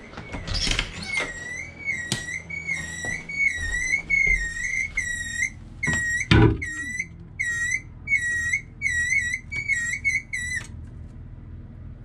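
Toilet cistern fill valve whistling, a warbling squeal in pulses about twice a second that gets choppier, then cuts off suddenly about ten and a half seconds in as the water supply to it is shut off. A loud thump and a few knocks come about six seconds in.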